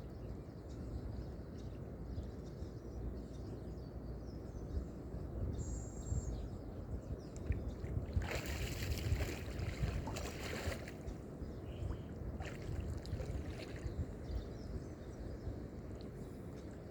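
Lakeside water lapping over a steady low rumble, with a louder stretch of splashing water lasting about two and a half seconds past the middle and a brief high chirp a little before it.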